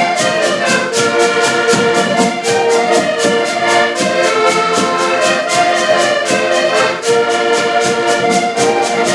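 Band rehearsing: brass instruments play a tune together over a steady, quick percussion beat.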